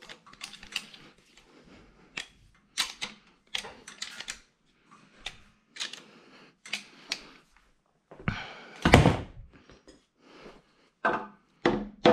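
Metal engine parts and tools being handled: a run of short clicks and knocks, with a louder thump about nine seconds in.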